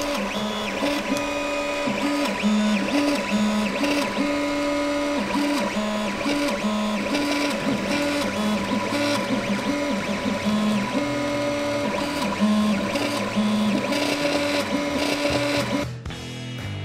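Creality FDM 3D printer printing: its stepper motors hum in steady tones that jump between a few pitches as the print head changes direction, over a steady fan whine. The sound cuts off near the end.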